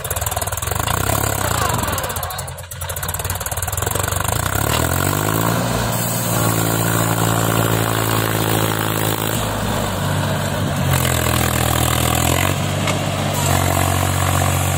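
Mahindra 265 DI tractor's three-cylinder diesel engine labouring under heavy load as it hauls a loaded sand trolley through soft sand. It revs up about five seconds in, holds high revs, and climbs again near the end.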